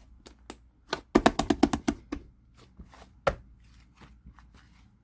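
Slime being squeezed and poked by hand, making sharp clicking pops. A quick flurry of about eight clicks comes about a second in, and one louder pop a little past three seconds.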